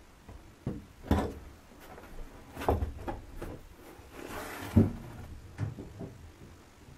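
An old boot being handled on dusty wooden attic floorboards: several dull knocks as it is picked up, set down and turned over, with a brief scrape shortly before the loudest knock.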